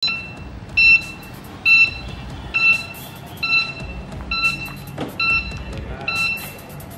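Three-wheeled electric scooter's electronic warning beeper, giving a short beep a little more than once a second. There is a single thump about five seconds in.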